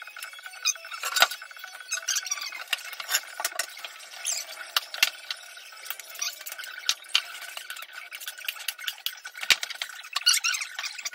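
Hand work at a tile job: a run of short scrapes, clicks and clinks as tiles are wiped and hands and tools work in a plastic bucket.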